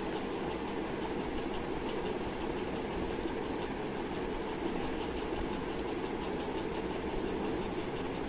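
A steady mechanical hum that holds at the same level throughout.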